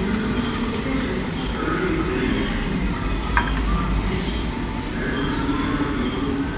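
Tabletop wet grinder running steadily, its stone rollers churning soaked rice and milk into a thick batter, with one small click about three and a half seconds in.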